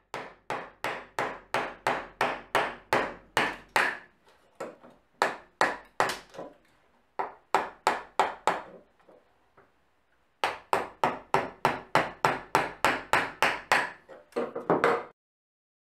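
A turned wooden mallet striking the handle of a bench chisel, chopping into a wooden board. It lands sharp, even blows, about three a second, in several runs with short pauses between.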